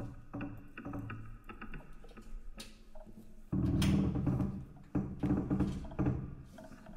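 Experimental music played on a sculptural instrument. It starts with short, separate pitched notes and knocks, then about halfway a louder, low pitched sound begins, swelling in repeated pulses.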